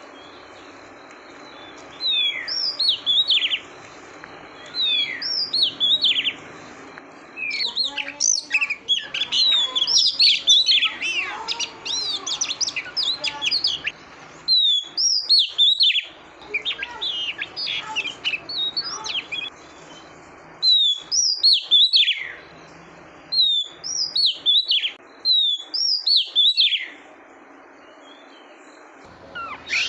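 Female Oriental magpie-robin calling: short bouts of sharp, downward-slurred whistled notes every second or two, with a denser run of chattering notes in the middle. It is the female's call of the kind used to rouse male magpie-robins.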